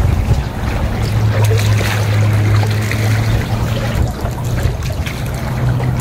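Boat engine running steadily with a low, even hum; water laps faintly beneath it.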